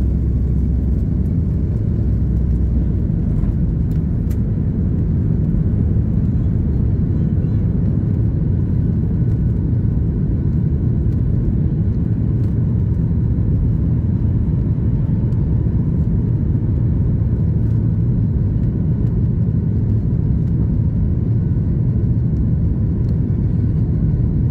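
Cabin noise of a Boeing 737 MAX 8 climbing out just after takeoff. Its CFM LEAP-1B turbofans at climb thrust and the rushing air give a steady, deep rumble.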